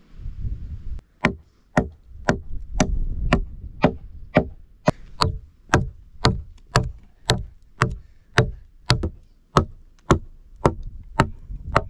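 Hatchet chopping into a wooden log, a steady run of sharp strikes about two a second, beginning about a second in, as bark and chips are hewn off the log.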